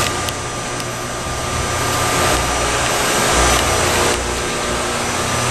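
Steady whirring hum of spark plasma sintering lab equipment running, such as its power-supply cooling fans, hydraulics and vacuum pump, with a faint constant high tone over it.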